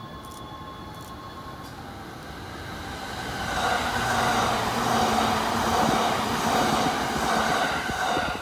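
E259 series Narita Express electric train passing at speed without stopping, its wheels running on the rails. The sound grows louder as it approaches, stays loud for about five seconds as the cars go by, and drops off suddenly near the end as the last car clears.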